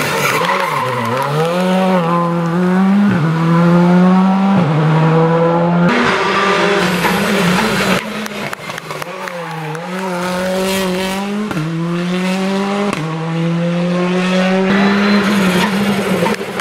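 Turbocharged four-cylinder rally cars, first a Skoda Fabia and then a Hyundai i20, accelerating hard out of a bend. The engine note climbs and drops sharply at each quick upshift. About eight seconds in, a cut switches to the second car doing the same.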